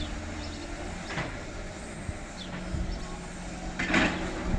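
Demolition excavator working rubble: its engine runs steadily while the steel grab knocks and clatters against debris, with a short clatter about a second in and the loudest one about four seconds in.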